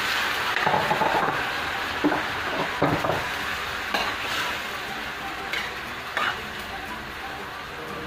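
Thin strips of beef sizzling as they sauté in a stainless steel pan, a metal ladle stirring them and now and then scraping and knocking against the pan.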